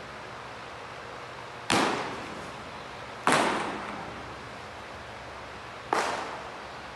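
Three sharp pops of a baseball smacking into a catcher's mitt, each echoing briefly in a large room.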